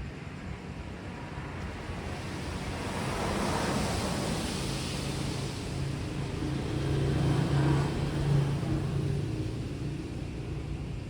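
A motor vehicle passing close by on a wet road: the hiss of tyres swells, then a low engine hum rises and fades over several seconds, against a steady hiss of rain.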